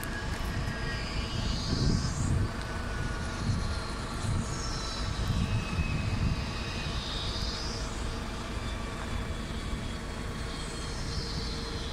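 Zipline trolleys running along the steel cable overhead: a whine that sweeps in pitch three times as riders pass. Underneath is a steady, gusty rumble of wind on the microphone.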